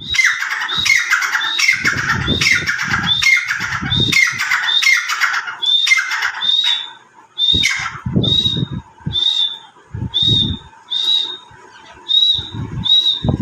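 Birds calling over and over: a dense run of overlapping calls for about the first six seconds, then single high calls about twice a second. Low thuds come in between.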